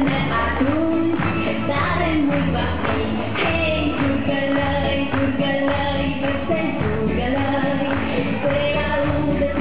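Pop song with singing over a steady beat.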